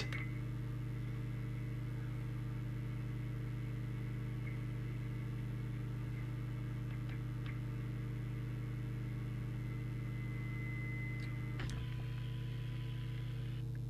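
Steady electrical mains hum from the bench radio set-up while the CB transmitter is keyed for tuning, with a faint steady high whistle. Near the end there is a click, then a short burst of hiss that cuts off as the transmission stops.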